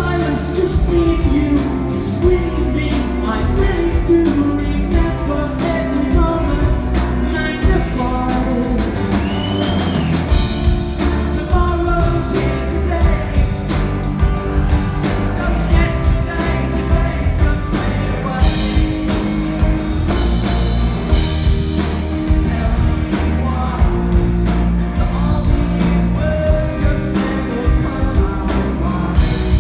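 Live rock band playing a pop-rock song: electric guitars, bass and drums with a steady beat, and a man singing the lead.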